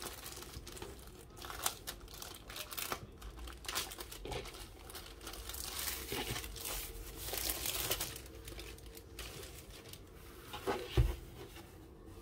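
Clear plastic sleeve crinkling and rustling as hands work a rolled diamond-painting canvas out of it and unroll it, with one thump near the end.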